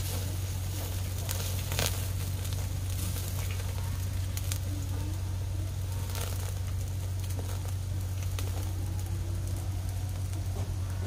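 Charcoal and wood cooking fire crackling under whole catfish grilling on a wire rack, with a few sharp pops over a steady low hum.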